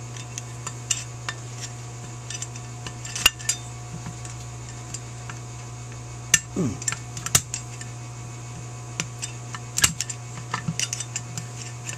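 Irregular small metallic clicks and taps of a screwdriver working against the cast-metal float bowl of a Holley 4000 carburetor and the small parts inside it, a few of them sharper, over a steady low hum.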